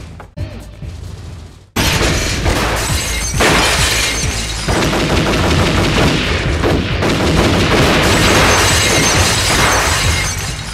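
Film shootout sound effects: a dense barrage of gunfire with glass and bottles shattering, starting abruptly about two seconds in and cutting off just before the end.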